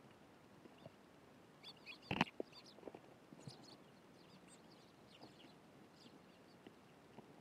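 Eurasian tree sparrows giving short, scattered chirps at a garden feeder. There is one sharp knock about two seconds in, the loudest sound.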